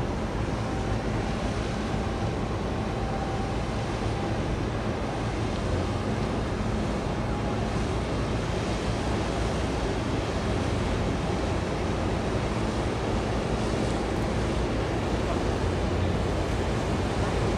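A large container ship passing close by: a steady low drone from its engine under a rush of water and wind noise on the microphone, growing slightly louder toward the end as the hull comes abreast.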